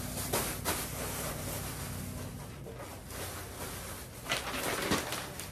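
Loose paper and a plastic shopping bag being handled, a few short rustles and crinkles: one pair near the start and another around four to five seconds in.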